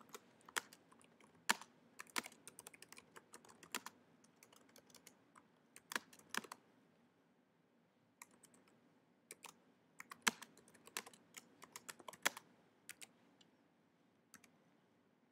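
Typing on a computer keyboard: irregular keystrokes in short runs, with a pause of about a second and a half around the middle, thinning out to a last few taps near the end.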